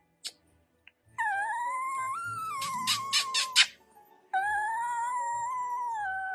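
A dog howling: two long, high, slightly wavering howls with a short break between them. The first howl breaks up into a few sharp yelps near its end.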